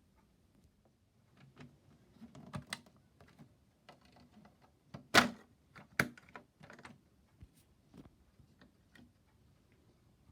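Scattered clicks and knocks from a plastic toy washing machine being handled, with two louder knocks about five and six seconds in.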